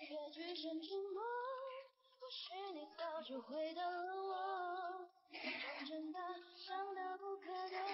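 Background music: a woman's high voice singing a slow pop song melody, with two short hissy bursts, one about five seconds in and one at the end.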